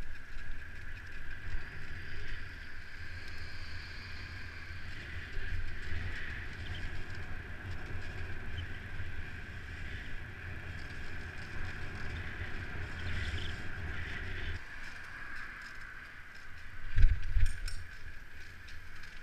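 Mountain bike riding on city pavement: wind buffeting the bike-mounted camera's microphone over steady riding noise. The rumble drops away about three-quarters of the way through, and a short, loud thump follows a couple of seconds later.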